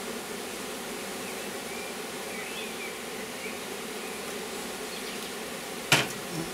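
A honeybee colony buzzing steadily around its opened hive, a low, even hum. A single sharp knock about six seconds in.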